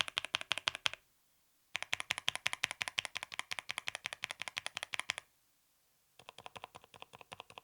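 Fast typing on a mechanical keyboard fitted with Kailh Deep Sea silent switches: rapid soft key clacks, about ten a second, their bottom-out muffled by the silicone pad inside each switch. The typing breaks off about a second in, resumes, stops again about five seconds in, and comes back quieter near the end.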